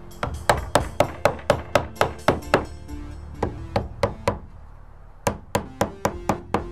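Hammer driving nails into a wooden cant strip on a roof deck: quick runs of sharp strikes at about four a second, with short pauses between nails.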